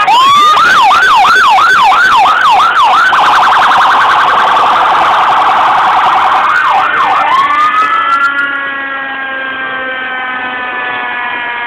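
Fire engine sirens sounding: a wail that sweeps repeatedly up and down, turning into a fast warble for a few seconds. About eight seconds in it changes to one long tone that rises, then slowly sinks in pitch.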